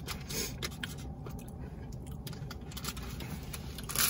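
Faint scratching and rustling with soft clicks as leftover takeout food is put away. Just before the end, a plastic wrapper starts to crinkle.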